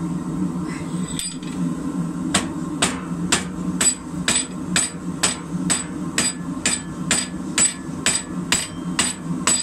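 Hand hammer striking the end of a red-hot rebar held upright in an upsetting block in a vise, upsetting the end to thicken it. One blow about a second in, then steady blows about twice a second from about two seconds in, each with a short metallic ring, over a steady low hum.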